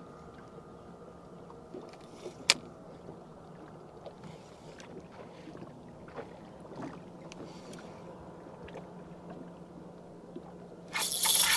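Quiet fishing boat at rest on the water: a faint steady hum with scattered light clicks, and one sharp click about two and a half seconds in. Near the end a loud rush of noise sets in suddenly.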